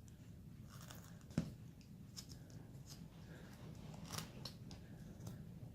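Carving knife slicing small shavings from basswood: a few faint, short cuts scattered through, the sharpest about a second and a half in and another near four seconds.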